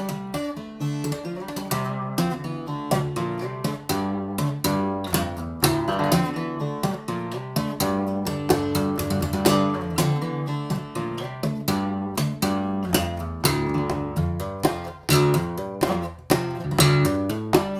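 Steel-string dreadnought acoustic guitar played solo fingerstyle, the right hand tapping and plucking the strings over the upper frets. A fast, continuous run of ringing notes with sharp percussive attacks.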